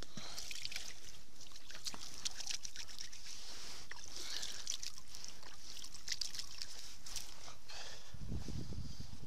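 Balls of groundbait thrown by hand into a canal, landing with small splashes, over close rustling of clothing; a low rumble of handling noise near the end.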